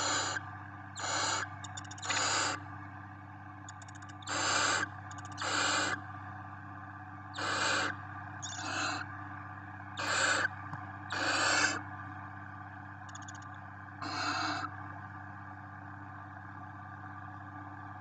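Barn owl chicks giving harsh, hissing snore-like calls, the food-begging call of barn owl nestlings: about ten half-second hisses roughly a second apart, stopping about fifteen seconds in. A steady low hum runs underneath.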